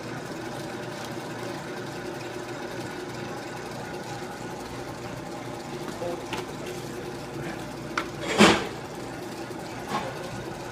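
Large commercial planetary stand mixer running steadily at high speed, its wire whisk whipping a mixture toward ribbon stage. A few short knocks break the hum; the loudest is about eight and a half seconds in.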